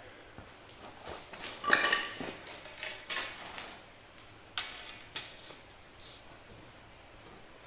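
Steel steering plates clanking and knocking as they are handled and fitted onto the chassis, a string of metal knocks with the loudest about two seconds in, ringing briefly.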